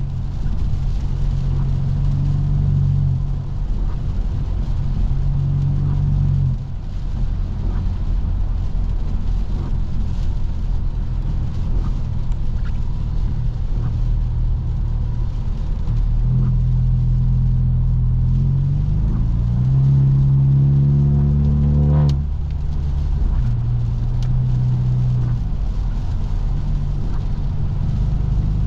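Straight-piped, tuned BMW F30 328i's turbocharged four-cylinder engine cruising with a steady low exhaust drone and a few shifts in pitch. About twenty seconds in it revs up with a rising pitch, then drops off suddenly with a single sharp crack as the revs fall.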